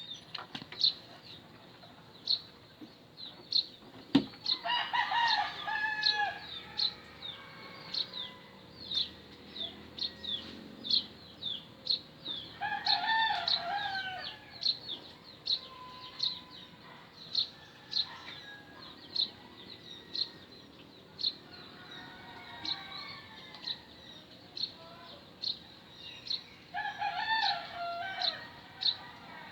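Roosters crowing: three loud crows, about five seconds in, near the middle and near the end, with fainter crows between them. A small bird repeats a short high chirp one to two times a second throughout.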